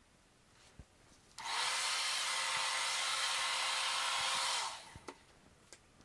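Handheld blow dryer on its cool setting, switched on for about three seconds and blowing steadily, with a motor whine that rises as it spins up and falls as it is switched off. A few light knocks come before and after.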